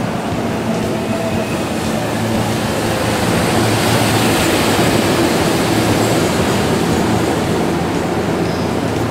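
JR Freight EF210 electric locomotive passing close by, its wheels rumbling and hissing on the rails. The sound swells about three seconds in as it goes past and stays loud for several seconds.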